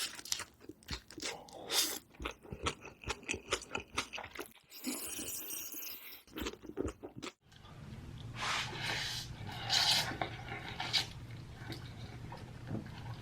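Close-miked eating sounds: chewing and biting into food, with quick wet clicks and crunches. About seven and a half seconds in the sound breaks off, and the eating resumes over a low steady hum.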